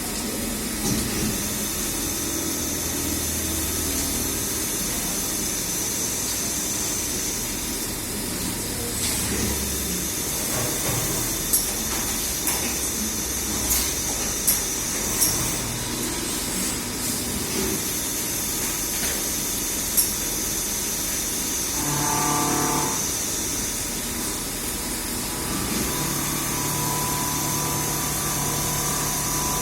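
Steady machine noise with a high-pitched whine, broken by several sharp clicks in the middle and a short pitched hum a little later.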